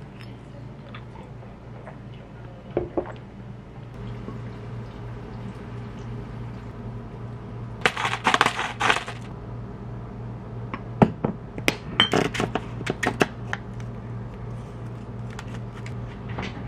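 A spatula mixing seasoned cooked rice in a glass bowl: a dense second-long burst of scraping and clinking against the glass, then scattered sharp clicks and taps a few seconds later, over a steady low hum.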